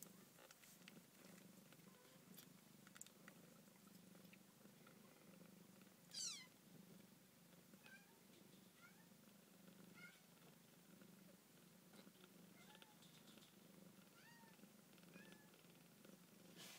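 Two-week-old F1 Savannah kittens purring faintly and steadily. About six seconds in there is one shrill mew that falls steeply in pitch, and later there are several tiny short squeaks.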